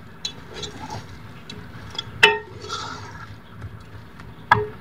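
Wooden spoon stirring chicken, yogurt and onion paste in a cooking pot, knocking against the pot's side with a short ring about two seconds in and again near the end.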